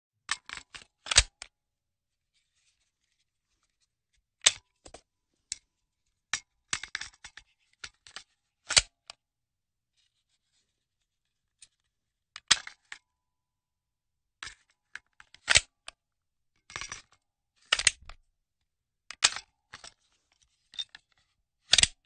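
A handgun magazine being loaded: short clusters of sharp clicks and clacks, repeated as separate takes every second or few seconds, with silence between them.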